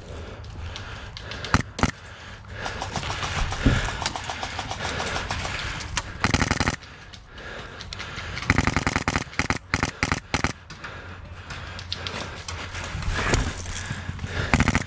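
Airsoft rifle firing rapid bursts: one about six seconds in, another around nine seconds and a third near the end, over steady background noise from movement.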